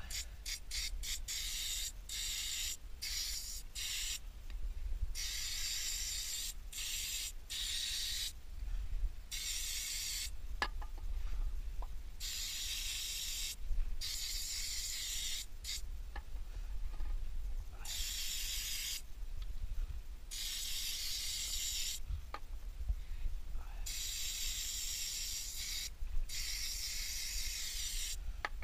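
Aerosol can spraying onto a motorcycle's drive chain in repeated hissing bursts: short squirts at first, then longer ones of a second or two, with pauses between.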